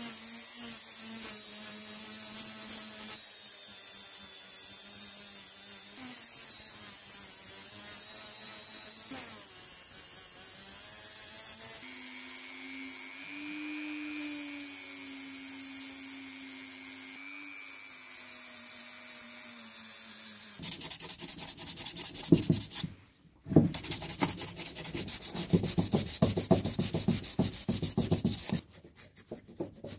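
Small rotary tool running with a steady whine that shifts in pitch as it loads, a small mounted abrasive wheel working the aluminium motor housing of an old straight grinder. About two-thirds of the way in the tool stops and hand sanding takes over: quick rubbing strokes, with a brief pause just after they begin.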